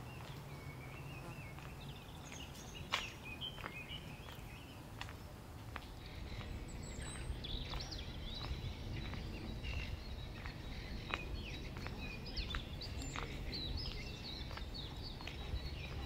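Small birds chirping on and off over a steady low outdoor rumble, with scattered footsteps on a cobbled lane.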